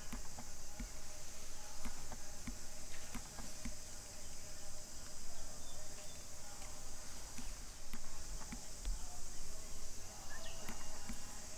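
Steady high-pitched insect drone of outdoor ambience, with scattered light clicks and taps and a faint low rumble underneath.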